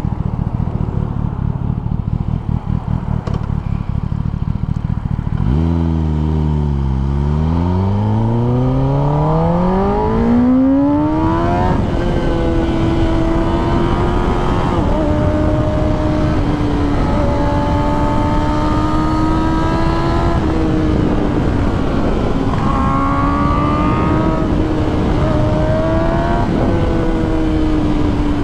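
Kawasaki ZX10R inline-four sport-bike engine pulling hard up through the revs from about five seconds in, its note rising steadily for several seconds. It then holds a steady high cruising note with small rises and dips, over a constant low rush of wind.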